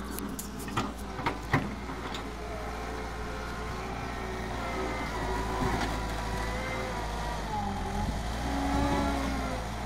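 Wheel loader's diesel engine running steadily as its bucket pushes and levels soil, with three sharp knocks in the first two seconds and whining tones that rise and fall in the second half as it works.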